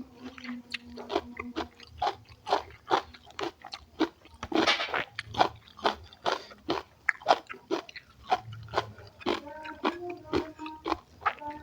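Close-miked chewing: a person eating, with wet smacking mouth sounds and sharp crunches at about two to three a second. A louder crunch comes about five seconds in.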